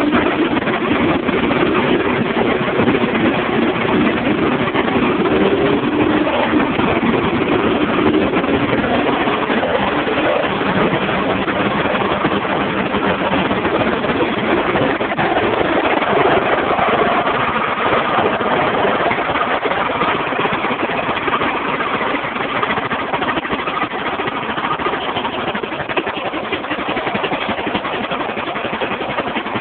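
Small engine of a home-built racing lawnmower, freshly reassembled, running steadily through an open, unmuffled upright pipe after a cold start, its speed shifting a little now and then.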